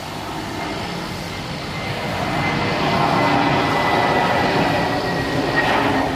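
Airbus A320neo's CFM LEAP-1A turbofan engines on approach with gear down, growing louder as the airliner nears, with a high whine that slowly drops in pitch.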